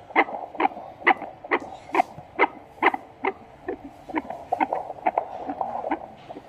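Fetal heartbeat: a fast, regular pulsing beat, a little over two beats a second, over a steady hiss.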